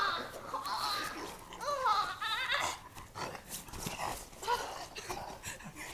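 Wordless growling and wavering cries from people grappling, the zombie-costumed attacker snarling at the golfer, with a few scattered knocks and scuffs from the struggle.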